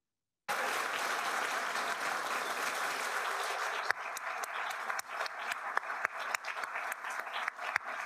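Large audience applauding: dense, even clapping that starts about half a second in, then thins after about four seconds into scattered individual claps.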